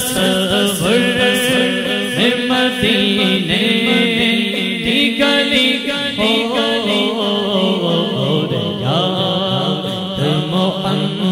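A man singing an Urdu naat into a microphone in long, drawn-out melodic phrases, over a steady low drone.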